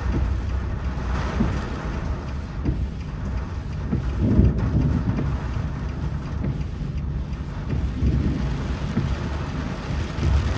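Vehicle noise in heavy rain: a steady low rumble under an even rain hiss, swelling briefly about four seconds in.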